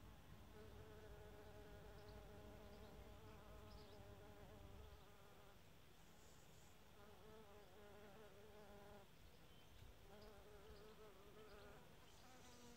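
A bee buzzing in flight, faint, its pitch wavering as it moves. The buzz breaks off about nine seconds in and comes back for a couple of seconds shortly after.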